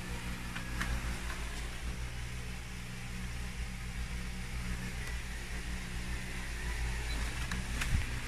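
A steady low mechanical hum with an even hiss behind it, and a few light clicks about a second in and again near the end.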